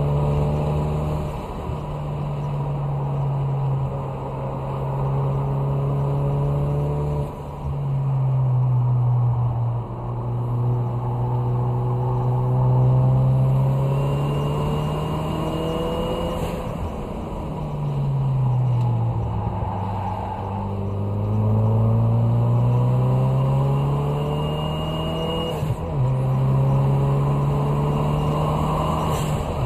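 2016 Ford Focus RS's turbocharged 2.3-litre EcoBoost four-cylinder engine heard from inside the cabin, pulling hard around 4,000–4,400 rpm on a race track. Its pitch drops and climbs back twice as the throttle is eased and reapplied through the corners, then holds steady near the end.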